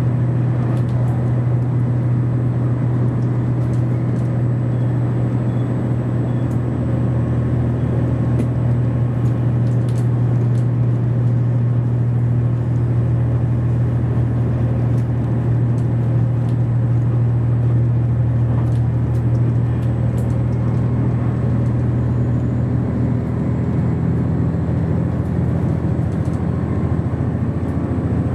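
Inside a JR Shikoku 2700 series diesel railcar running at speed: a steady low drone from its underfloor diesel engine mixed with rolling wheel-and-rail noise. The engine note shifts slightly about three-quarters of the way through.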